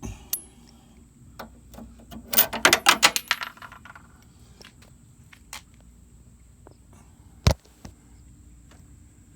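Small metal tools and parts clinking and rattling as they are handled. A quick cluster of clinks comes about two and a half seconds in, and a single sharp click near seven and a half seconds.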